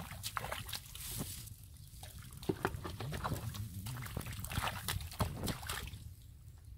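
Wet mud and muddy water squelching and splashing as hands scoop into it and bare feet wade through it: a run of short, irregular wet splats.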